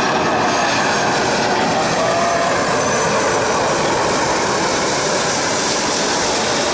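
Jet airliner on final approach passing close, its engines making a steady loud rush with a faint whine.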